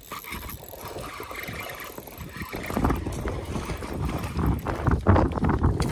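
Water splashing and sloshing, with wind buffeting the microphone, growing louder about three seconds in.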